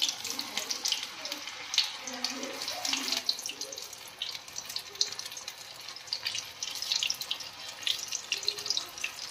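Batter-coated paneer pieces deep-frying in hot oil in an iron kadai: a steady sizzle with frequent small crackling pops.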